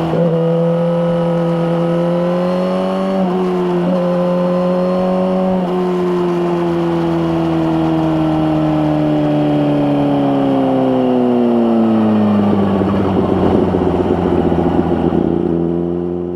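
Suzuki GSX-R1000R's inline-four engine through an Akrapovic slip-on exhaust, running under way with two brief breaks in the note about three and six seconds in, like gear shifts. From about ten seconds in the pitch falls as the bike slows, the note turns rougher, and it fades out at the end.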